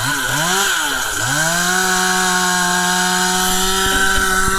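Chainsaw engine revved in three quick blips, then held wide open at a steady high pitch.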